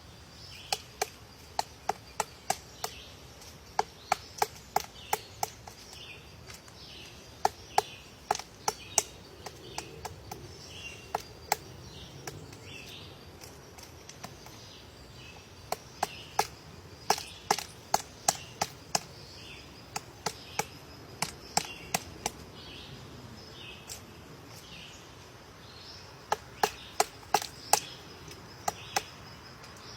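Woodpecker excavating wood, striking with single sharp blows in loose irregular runs of about one to three knocks a second, with short pauses between runs.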